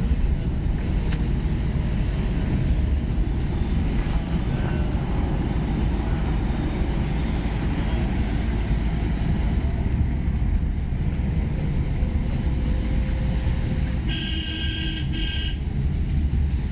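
Steady low road and wind rumble inside a moving car. Near the end a pitched tone with several overtones sounds for about a second and a half.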